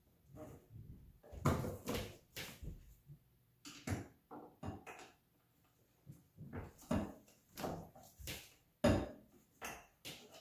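Irregular metallic clicks and clanks of a wrench working the alternator mounting bolts in a car's engine bay, with pauses between strokes.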